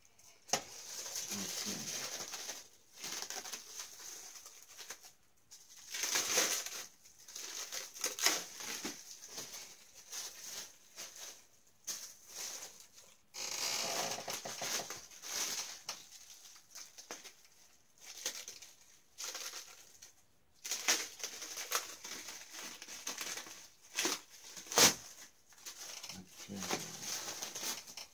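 Clear plastic packaging crinkling and rustling in irregular bursts as it is pulled off a wrestling title belt, with a few sharp crackles, the loudest near the end.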